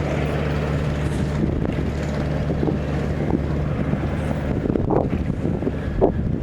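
An engine running steadily with a low, even hum, with wind buffeting the microphone. A few short knocks come in the last couple of seconds.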